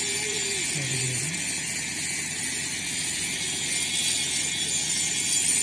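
Blades of a tractor-driven chaff cutter being sharpened: a steady metal-on-metal rasping scrape.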